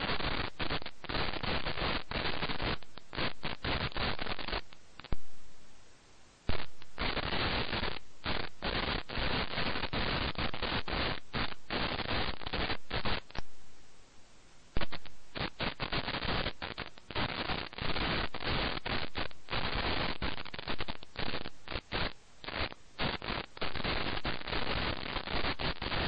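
Harsh, crackling static hiss that stutters with many brief dropouts and cuts out for a second or two about five seconds in and again around fourteen seconds.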